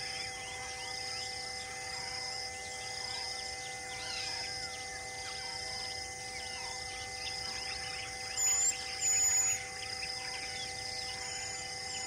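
Outdoor ambience of insects and birds: a high insect buzz pulsing about once a second over many faint bird chirps, with two short, loud, high whistled bird calls a little past the middle.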